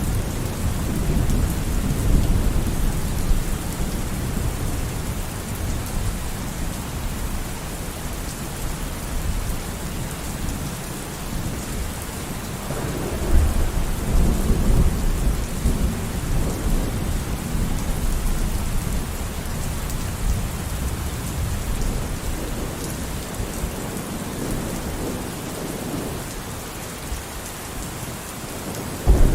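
Steady heavy rain with rolling thunder. Low rumbles swell near the start and again about halfway through, and a loud crack of thunder breaks in just before the end.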